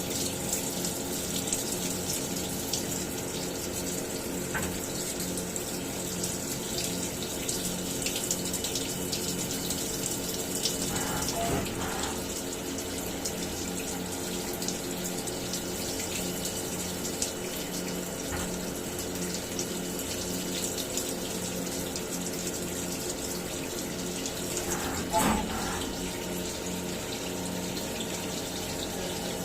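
CNC milling machine running steadily while milling a wheel's hub bore: a constant hum of several held tones under a hiss like running water, typical of coolant flowing over the cut. Brief louder sounds come near the middle and again about 25 seconds in.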